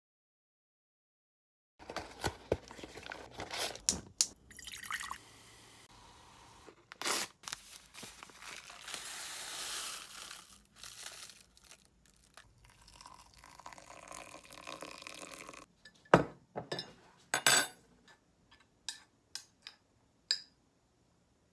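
Oatmeal being made in a ceramic mug, starting after about two seconds of silence: dry oats poured from a paper packet with a steady rustle, liquid poured in, and scattered clicks and knocks of the mug. Near the end come a few sharp clinks of a metal spoon against the mug.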